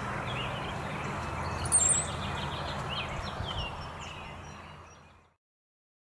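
A flock of perched songbirds, thought to be courting brown-headed cowbirds, calling together in many short chirps and gliding whistles, with one loud, very high squealing whistle about two seconds in. A steady low rumble sits underneath, and the sound fades out near the end.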